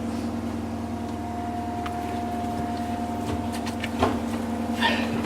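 A small motor running with a steady hum, joined by two brief clatters about four and five seconds in.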